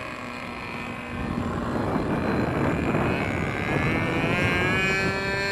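Radio-controlled model aircraft built as a flying lawnmower, its motor and propeller whining as it flies overhead. It grows louder about a second in, and its pitch rises near the end.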